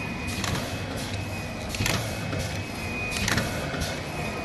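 Automatic flatbed screen printing machine running its print cycle: a steady mechanical hum with a sharp clack about every one and a half seconds.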